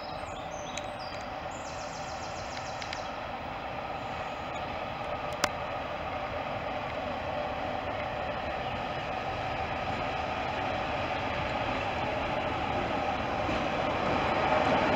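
Class 47 diesel locomotive's Sulzer engine running as it draws slowly into the platform, growing steadily louder as it approaches. A single sharp click about five seconds in.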